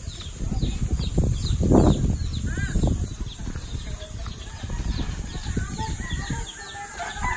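Chickens clucking, over a steady run of short high chirps and a low rumble that swells about two seconds in.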